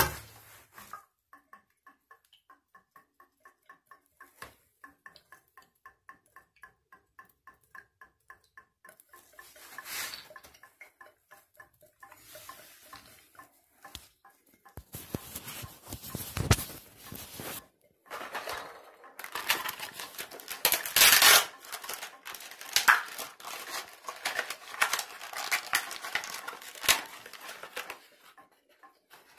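Hand tools and metal parts clinking and scraping at a Moen 1225 single-handle shower valve during cartridge removal. A run of small regular ticks, about three a second, comes first. Louder irregular metal clatter and scraping fill the second half.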